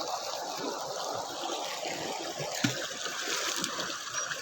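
Water trickling and running over stones in a shallow rocky hill stream, a steady splashing wash. One sharp knock a little past halfway.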